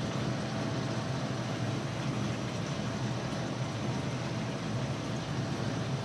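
Steady hum and hiss of a cylinder-fed gas burner flame under an iron karahi, with chicken sizzling in ghee.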